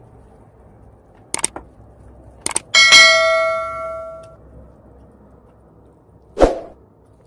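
Subscribe-button animation sound effect: two quick double clicks about a second apart, then a loud bright bell ding that rings and fades over about a second and a half. A short thump follows near the end.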